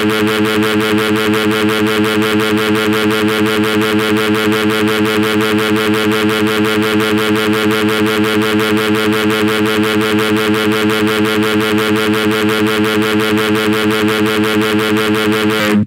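A drawn-out, heavily distorted computer-voice yell held on one pitch, loud and buzzing with a fast even pulse of about five a second. It cuts off abruptly just before the end.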